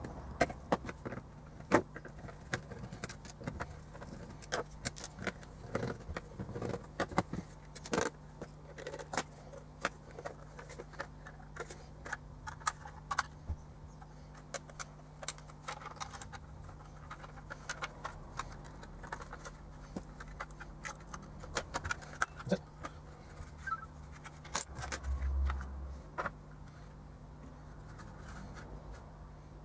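Plastic case of a Mastech MS7221 handheld calibrator being opened and taken apart by hand: scattered sharp clicks, taps and rattles of plastic parts, with a dull bump a little before the end.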